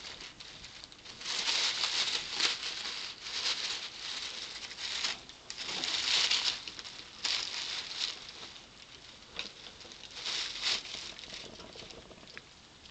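Pet rats fishing peas from a shallow water bowl: an irregular patter of small splashes and scrabbling rustles in uneven bursts, dying down near the end.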